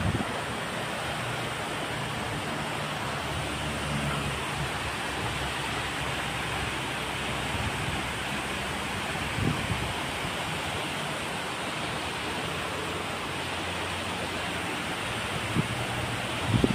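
Steady rush of river water pouring over a low concrete weir, with a few short low thumps.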